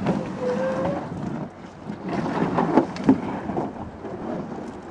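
A canoe hull scraping over the shore as it is dragged toward the water, in two stretches of rumbling scrape, with a short squeak early on and two sharp knocks about three seconds in.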